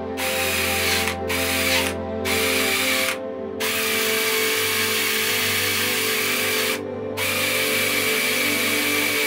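Wire wheel brush spinning on a power tool, scrubbing rust off a small steel part of a ratchet wrench held in a vise: a harsh scratching hiss over a steady motor whine. It comes in three short bursts at first, then two long passes with a brief stop about seven seconds in.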